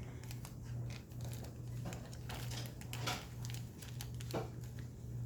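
Plastic packaging of foam beads crinkling and crackling as it is handled and opened, with irregular clicks and a few short rustling swishes.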